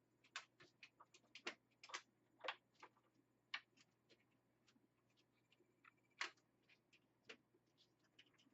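Scattered light clicks and taps, irregular and a few per second, from PC cables and plastic parts being handled and fitted inside a computer case.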